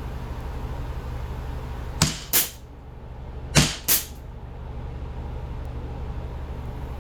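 CO2 replica 1911 BB pistol firing: four sharp pops in two quick pairs, about two seconds in and about three and a half seconds in, over a steady low hum.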